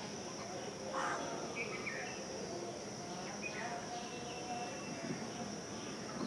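Outdoor ambience: a steady high-pitched insect drone with a few short chirps, the loudest about a second in, over a constant low background rumble.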